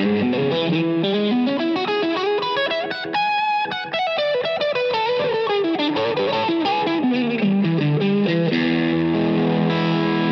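Electric guitar, a Fender Stratocaster through a Two-Rock amp, playing fast single-note runs that climb and fall, then a held chord about eight seconds in. It is picked up by a dynamic mic set off the centre of the speaker cone, which tames the harshness and high end.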